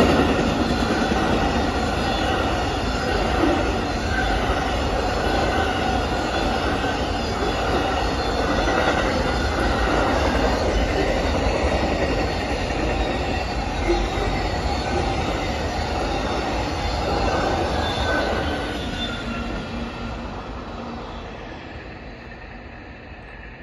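Amtrak Auto Train's enclosed auto-carrier cars rolling past on the rails, a dense rumble of wheels with steady high tones over it. The sound fades away over the last few seconds as the train recedes.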